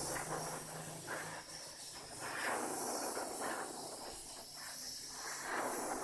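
Machine toothing a bandsaw blade: a steady hiss that swells and fades in uneven surges, roughly once a second.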